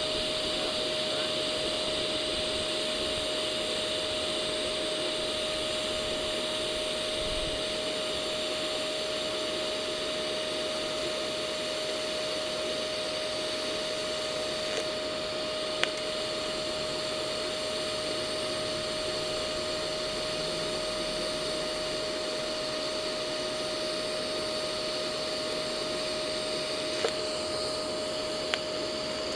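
TIG welding setup running steadily: a constant whirring hum with a high hiss, broken only by a few sharp ticks about halfway through and near the end.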